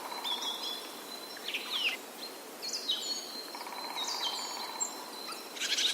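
Forest birdsong ambience: several birds chirping and calling in short, overlapping phrases, over a faint steady outdoor hiss, with a thin steady high tone held through much of it.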